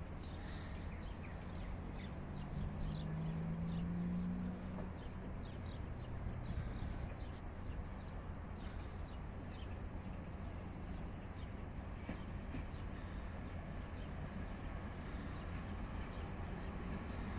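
Small birds chirping in the trees, many short calls, thinning out in the last few seconds, over a steady low rumble; a low hum swells about two seconds in and fades by about five seconds.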